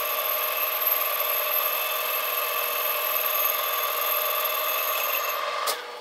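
Turning tool cutting the welded stainless seal ring of an impeller on a Monarch lathe, the cut giving a steady ringing whine of several tones. Near the end it stops abruptly with a click as the tool comes off the work, leaving the lathe running more quietly.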